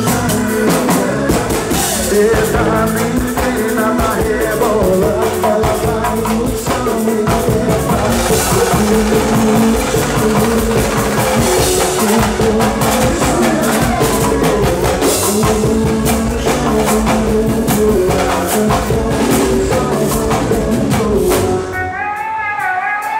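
Live pagode baiano band playing loudly, with a dense beat of hand drums (timbaus and congas) under keyboard and voices. Near the end the drums drop out and a single voice carries on over a thinner backing.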